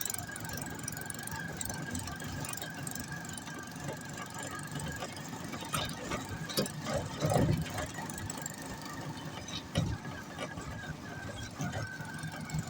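Rickshaw engine running on the move, heard from the passenger seat, with a steady high-pitched whine over the low engine drone. Short knocks and rattles come from the body as it jolts over the road, the loudest about seven seconds in and another near ten seconds.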